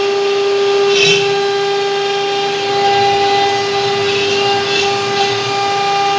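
CNC router spindle running with a steady high whine while carving pine wood. Short, harsher bursts of the bit cutting come about a second in and again around four to five seconds in.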